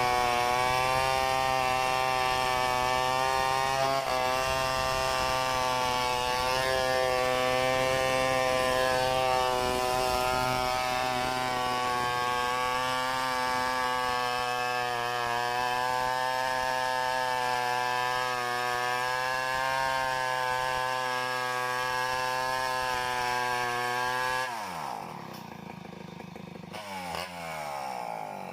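Two-stroke chainsaw running steadily at high revs while cutting wood. About 24 seconds in the throttle is released and the engine note falls quickly toward idle.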